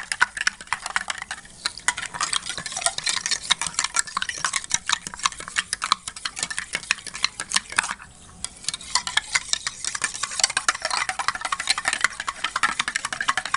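A spoon stirring milk with instant coffee and sugar in a stainless steel tumbler, clinking rapidly and continuously against the sides, with a short pause about eight seconds in. The stirring is to dissolve the sugar and coffee powder.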